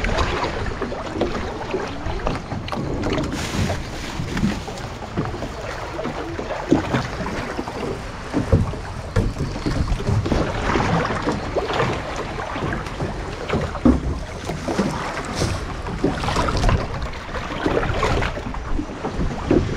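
Wind buffeting the microphone over water sloshing around a small boat, with irregular knocks and splashes.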